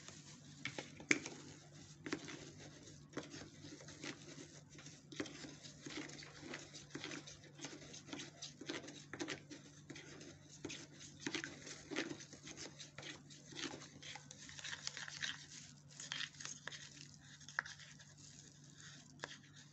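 Metal spoon scraping and tapping against the inside of a plastic cup while stirring carrot oil and powder to break up lumps: many small, irregular clicks and scrapes. A faint, steady low hum runs underneath.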